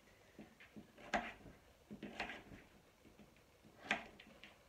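Kitchen knife chopping butternut squash on a plastic chopping board: three sharp knocks roughly a second or more apart, with fainter taps between.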